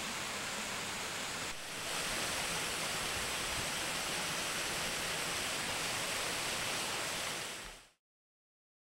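Mountain creek water rushing steadily over rocks. It becomes slightly louder about a second and a half in, then fades out to silence near the end.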